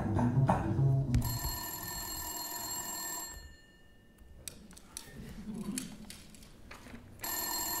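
The tail end of the music stops about a second in. A telephone then rings twice, each ring a steady electronic ring about two seconds long, with a gap of about four seconds between them; the second ring starts near the end.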